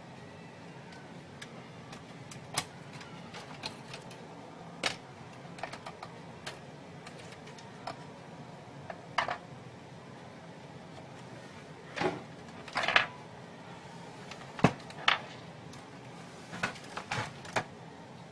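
Irregular clicks and knocks, about fifteen of them scattered unevenly over a faint steady hum, from a printer's parts being handled during repair. The loudest come about twelve to fifteen seconds in.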